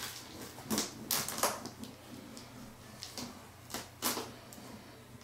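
Hands working at the top of a cardboard box: a string of irregular scratches and taps on the cardboard, a few louder ones about a second in and near four seconds in.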